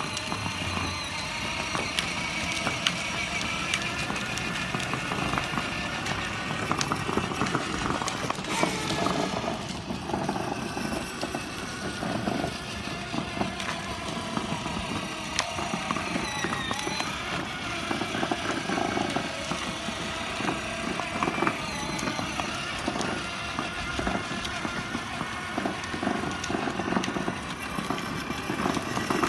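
Battery-powered children's ride-on toy car driving on asphalt: its electric motors whining steadily and its plastic wheels rolling, with scattered small clicks and knocks.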